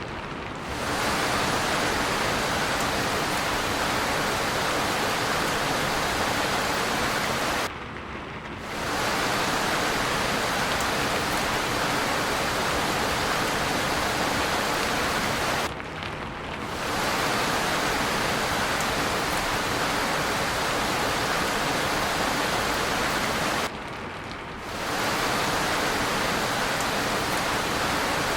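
Steady rain, an even hiss with no single drops standing out. Three times, about eight seconds apart, it briefly drops and goes dull for about a second before fading back up.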